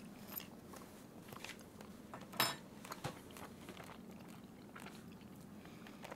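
Quiet chewing of a forkful of braised chicken, with a few small clicks, the loudest about two and a half seconds in, over a faint steady room hum.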